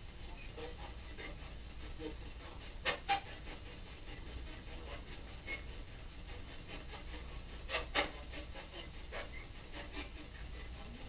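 Steady hiss of a quiet room as picked up by a small camera's microphone, with two pairs of short sharp clicks or taps, about three seconds in and again about eight seconds in.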